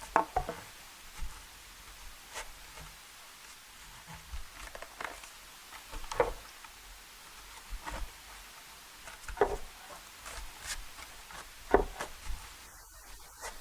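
Wooden mallet striking a gouge chisel as it hollows the inside of a wooden horn half: irregular sharp knocks, roughly one every second or two.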